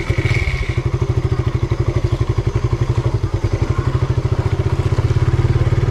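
Motorcycle engine running with a steady, rapid low beat as the bike pulls away and rides along the road.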